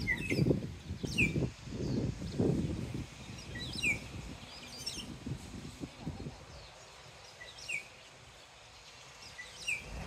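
Black-naped oriole calling: short, clear whistled notes that slide downward, repeated every second or two. Under the first six seconds runs a low rumble that then drops away.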